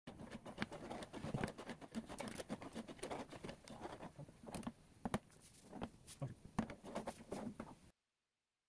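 Pot of water with scallions, onion, garlic and bay leaves at a rolling boil: faint, irregular bubbling and popping that cuts off about eight seconds in.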